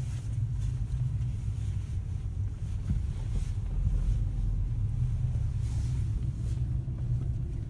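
Car's engine and road noise heard from inside the cabin as the car moves: a steady low rumble.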